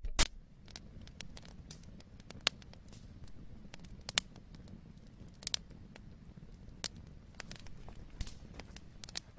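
Crackle sound effect under an intro animation: scattered clicks and pops over a low steady hum, the loudest pop just after the start.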